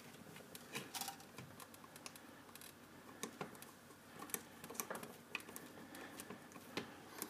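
Faint, irregular small clicks and taps of a 3D printer extruder's plastic and metal parts (spring-loaded lever, screw, gear) being worked back into place by hand.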